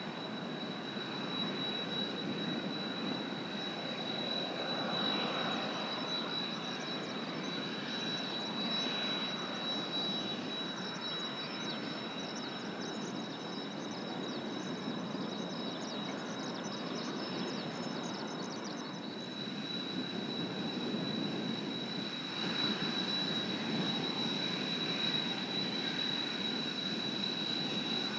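Kawasaki T-4 twin-turbofan jets flying at a distance, a steady rushing jet roar that swells and eases over several seconds. A thin steady high tone runs under it throughout.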